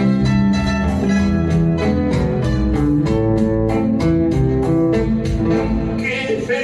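Guitar music in pasillo style: plucked guitar notes over a bass line, keeping a steady, even rhythm.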